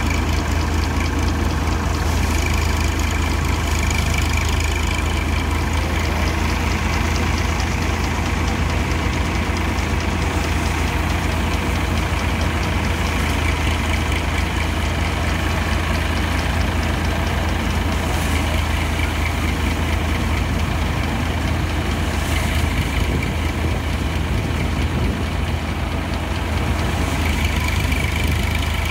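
Engine-driven paddy threshing machine running steadily at a constant speed, with a strong low hum.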